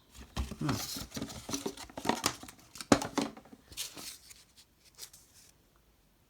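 Cardboard box and paper packaging being handled at close range: irregular rustling and crinkling with a few sharp clicks and knocks, dying down over the last second or so.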